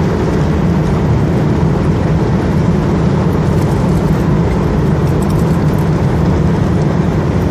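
Car driving steadily at road speed: engine hum and tyre and road noise heard from inside the cabin, unchanging.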